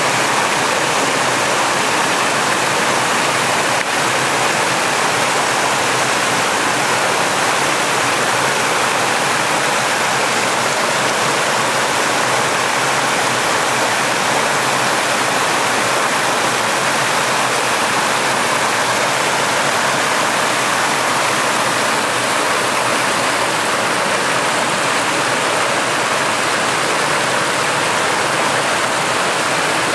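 Forest brook rushing and splashing over rocks in a small white-water cascade: a steady, loud wash of water close by.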